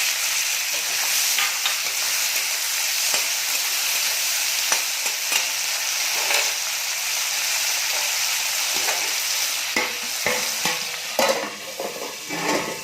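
Chopped onions and tomatoes sizzling in hot oil in a kadhai while a spatula stirs and scrapes the pan. Toward the end the sizzle dies down and the scraping and knocking of the spatula stand out.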